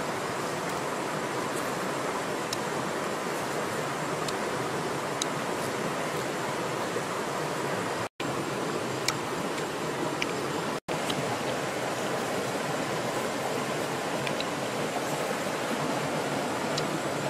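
Steady rush of river water flowing over rocks, broken by two brief gaps of silence about eight and eleven seconds in.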